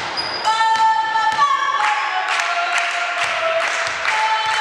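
Young women's voices chanting a team cheer with long, drawn-out high calls, the pitch sliding down around the middle, over scattered short claps or knocks.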